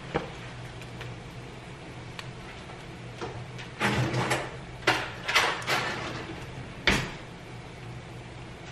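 Kitchen handling sounds: a few short scrapes and knocks of cookware and utensils about four to six seconds in, and one sharp clack near seven seconds, over a low steady hum.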